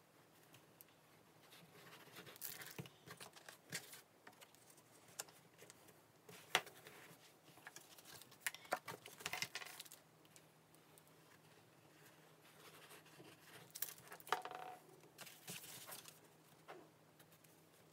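Faint handling of card stock on a craft mat: soft rustles, scrapes and light taps as paper layers are glued with a tape runner and pressed into place, in a few short clusters.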